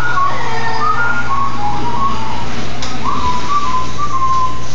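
A person whistling a simple tune in short held notes, in two phrases with a gap of about a second between them, over a steady low hum.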